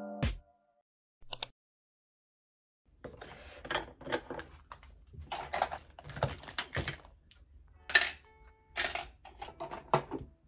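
Cosmetic bottles, jars and small items clicking and clattering as they are picked up and set down on a desk and packed into a makeup pouch, in irregular taps and knocks, the loudest about two-thirds of the way in. A piano tune cuts off right at the start and a short silence comes before the clatter begins.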